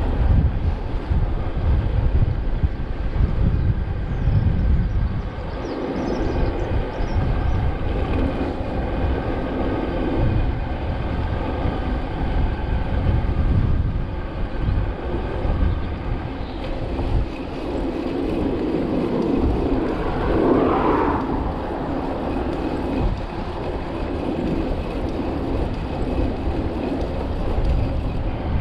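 Wind buffeting the microphone over the hum of mountain bike tyres rolling on a tarmac road, with a brief louder swell about twenty seconds in.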